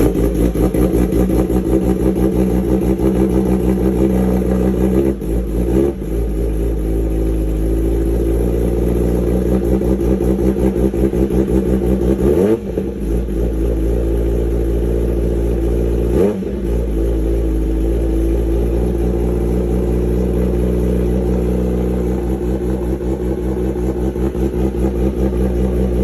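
Kawasaki Ninja sport bike's engine through an SC-Project aftermarket exhaust, idling after a cold start, with a few short throttle blips, the clearest two roughly halfway through.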